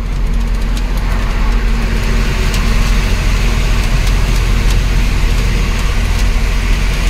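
Ashok Leyland 1214 truck's diesel engine running steadily at cruising speed, heard inside the cab, with road noise and a few faint clicks from the cab.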